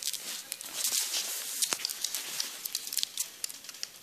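Close rustling and rubbing with many small clicks and taps scattered through, like cloth or paper being handled right against the microphone.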